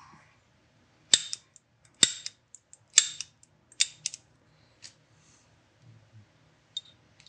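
Sharp metal-on-metal strikes with a ringing tail, four of them about a second apart, then a few lighter taps. This is metalwork on the tool post block to make the 10 mm slip-fit pins captive in their holes.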